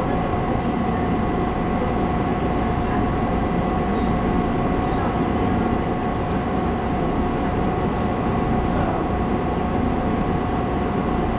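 Taiwan Railway local passenger train running, heard from inside the carriage: a steady rumble with a few constant tones above it and occasional faint ticks.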